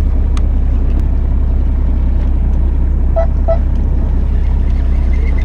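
Fishing boat's engine running with a steady low rumble, with two short chirps a little after three seconds in.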